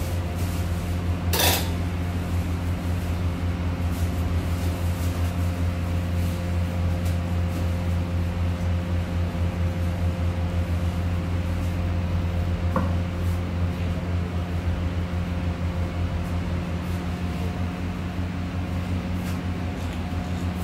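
Handheld corded electric facial massager buzzing steadily with a low, rapidly pulsing hum as it is pressed and moved over the face and neck. A sharp clack about a second and a half in.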